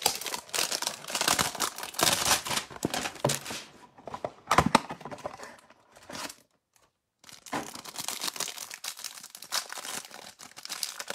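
Cardboard hanger box of Panini Select basketball cards being torn open, then the plastic wrapper on the stack of cards crinkling as it is handled and unwrapped. The sound is dense tearing and crackling, with a pause of about a second just past the middle.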